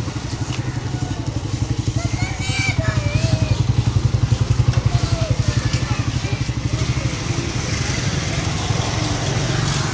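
Small motorcycle engine running at low revs close by, a rapid, even put-put that grows louder in the middle and then eases off.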